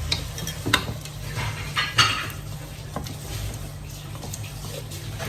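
A utensil stirring and scraping in a frying pan, with a few sharp clinks against the pan's metal, as mushrooms are turned so they cook evenly.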